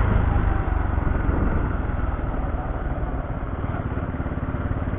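Motorcycle riding on the road, heard through a lapel mic mounted inside the rider's helmet: a steady rush of engine and road noise, strongest in the low end.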